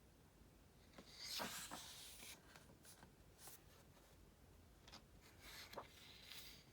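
Soft paper rustling from a book's pages being handled, in two short spells with a few light taps and clicks.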